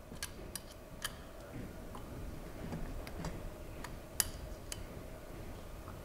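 A 4 mm Allen wrench clicking against the handlebar stem's faceplate bolts as they are tightened in turn: a string of irregular light metallic clicks, the sharpest one about four seconds in.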